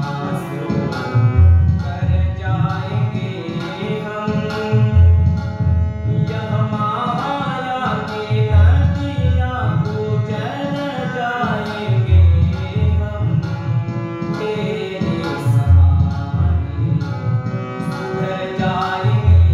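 A man sings a Hindi devotional bhajan to his own harmonium, its reeds sounding sustained chords under the melody. A drum keeps a steady beat, with a deep bass stroke about every three and a half seconds.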